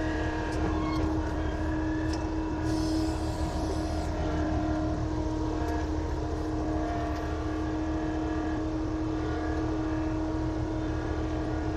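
Avant compact loader's engine running steadily at a constant pitch, with no change in speed.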